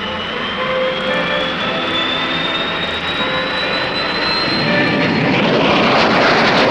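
Jet aircraft engine with a whine rising slowly in pitch, swelling into a loud rush near the end as the jet passes or takes off.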